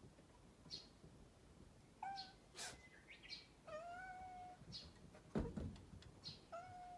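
Cat meowing three times: a short meow, then a long drawn-out one, then another near the end. A sudden sharp sound about five seconds in is the loudest thing. A bird chirps in the background about once a second.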